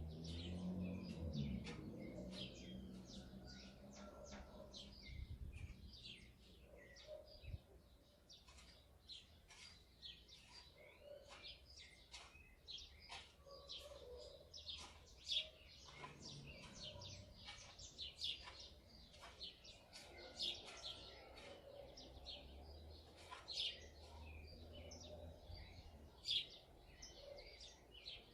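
House sparrows chirping, many short overlapping chirps from a flock. A low rumble underlies the first few seconds, and briefly again later.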